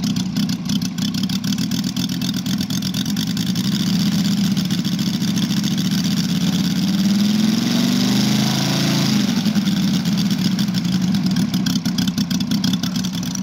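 Moki 250cc five-cylinder radial engine of a quarter-scale Hawker Sea Fury model running on the ground at idle. A little past halfway it is revved up briefly and falls back to idle.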